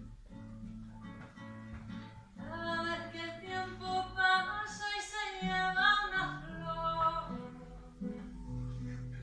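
Music: acoustic guitar playing, with a voice singing long held notes through the middle.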